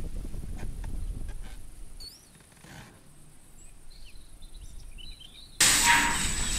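Outdoor ambience: a low rumble that fades after about two seconds, then a quiet stretch with a few faint bird chirps. About five and a half seconds in, a loud, steady machine noise cuts in suddenly.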